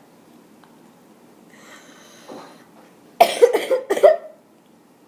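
A sick child coughing: a quick run of harsh coughs about three seconds in, after a faint breath.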